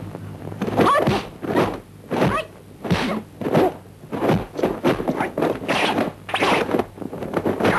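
Fight sound effects from a kung fu film soundtrack: a steady run of sharp punch and swish hits, about ten of them, one every second or less, over a faint low hum.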